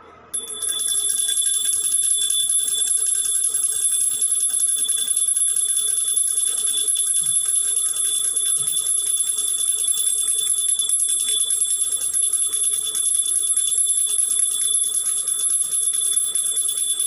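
Puja bell rung rapidly and without pause to accompany an aarti, a steady high ringing that starts suddenly just after the beginning and keeps an even level throughout.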